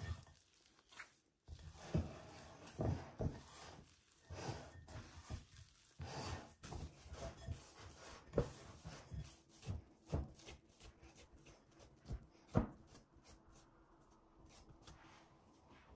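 Hands kneading soft yeast dough in a glass bowl: irregular soft squishing and rubbing as the dough is pressed and folded, with a few louder thuds, the sharpest about twelve seconds in. It grows quieter near the end as the dough is pressed flat.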